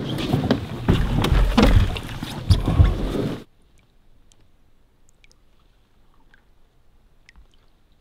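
Knocks, thumps and scrapes on a Novacraft Prospector canoe's hull as a person clambers out over it onto driftwood logs, loud and close on a camera fixed to the canoe. About three and a half seconds in it cuts off abruptly to a much quieter stretch with only a few faint ticks.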